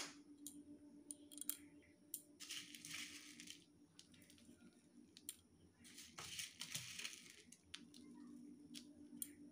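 Faint rustling and light ticks of crunchy sev and chopped onion being sprinkled by hand into a plastic bowl of ghugni, in two short spells amid near silence.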